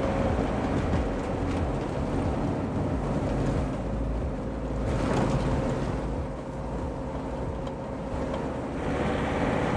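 Steady road and engine noise of a Toyota HiAce-based camper van cruising along a paved road: a continuous low rumble with a faint steady hum.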